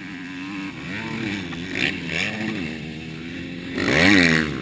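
Motocross dirt bike engines revving up and down as the bikes ride the track. About four seconds in, one bike passes close by, and its engine note rises, peaks loudest, then falls away.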